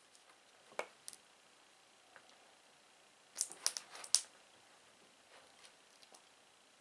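Quiet handling noises: two light clicks about a second in, then a short cluster of crisp ticks and crinkly rustles a little after three seconds in, as the tape-wrapped carving blade is fitted into the glued wooden handle.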